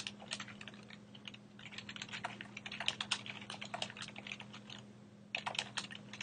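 Typing on a computer keyboard: quick runs of keystrokes with short pauses between words, over a faint steady low hum.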